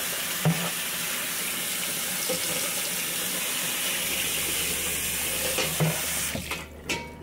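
Kitchen faucet running onto a metal drip tray in a stainless sink while the tray is scrubbed with a sponge. A few light knocks come from the tray being handled. The running water eases off near the end.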